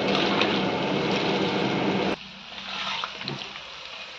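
Moong dal vadas deep-frying in hot oil in an iron kadhai: a loud, steady sizzle over a low hum that cuts off abruptly about halfway through, leaving a much quieter crackle of frying oil.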